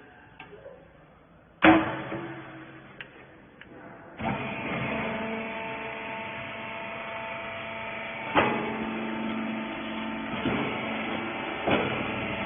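A rag baling machine: a loud metal clank, then about four seconds in its motor and hydraulic pump start and run with a steady hum, with two more clanks later on.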